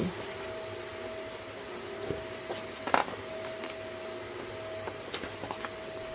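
Steady mechanical background hum with a thin, even tone, broken by a few light clicks about three and five seconds in.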